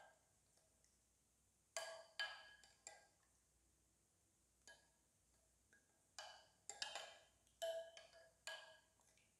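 A spoon stirring raita in a glass bowl, clinking against the glass in faint, irregular ringing taps, sparse in the first half and more frequent in the second.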